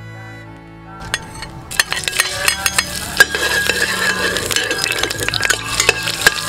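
Hot oil sizzling in a stainless steel pot as red chili pieces are fried, with a long metal spoon stirring and clinking against the pot. The sizzle starts about a second in and grows louder.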